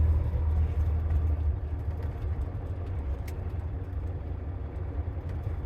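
Low, steady engine hum of an idling vehicle, easing slightly after about a second and a half.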